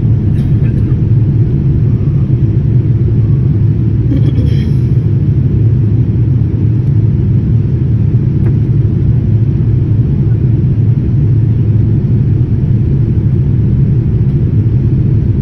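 Steady low roar of a jet airliner's cabin, engine and airflow noise heard from a window seat as the plane climbs after take-off.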